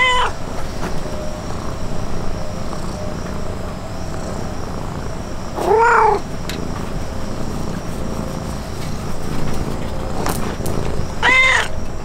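Domestic cat meowing three times: near the start, about six seconds in, and near the end. Each is a short call that rises and falls in pitch, over a steady low background noise.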